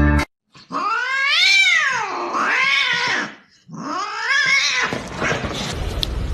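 A domestic cat giving a few loud, drawn-out meows, each rising and then falling in pitch, with a short break about three and a half seconds in. From about five seconds in there is a steady rough rushing noise.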